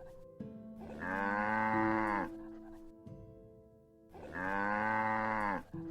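A cow mooing twice, two long calls about three seconds apart, each falling in pitch at its end.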